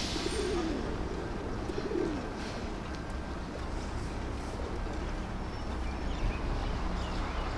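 Pigeons cooing, two coos within the first two seconds or so, over a steady low outdoor hum.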